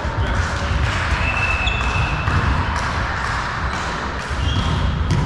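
Echoing sports-hall ambience during a volleyball match: a steady low rumble, a few short high squeaks of players' shoes on the court floor, and a ball bouncing.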